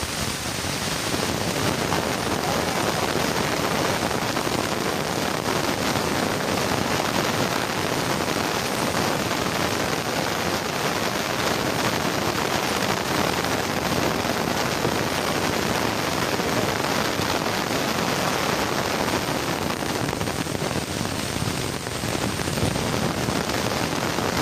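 Steady rain-like rushing hiss of a dense stream of bats flying out of a cave roost, many thousands of wings at once.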